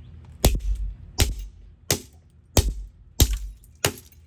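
Six hard, evenly spaced blows, about one every two-thirds of a second, smashing up a plastic camera or its electronics. Each blow is a sharp crack with a low thud under it.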